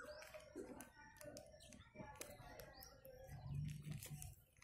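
Scissors snipping through a plastic mailer bag in short, quiet clicks and crinkles, with small birds chirping. A pigeon coos low from about three and a half seconds in, the loudest sound here.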